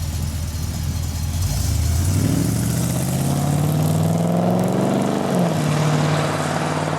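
Corvette C3 V8 engine idling, then revved about a second and a half in. It holds at raised revs and eases down near the end.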